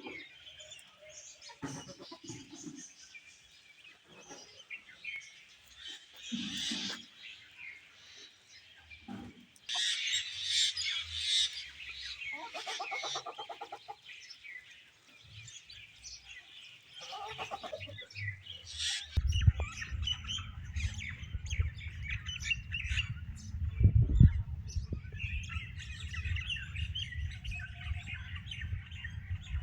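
Birds chirping and tweeting, with a longer pitched squawk about halfway through. From about two-thirds of the way in, a low rumbling noise sits under the chirps.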